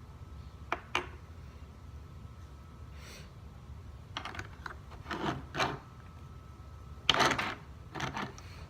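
Loose plastic Rubik's Cube pieces clicking and rattling as they are handled, in irregular bursts of small clicks, the loudest a little after 7 seconds in.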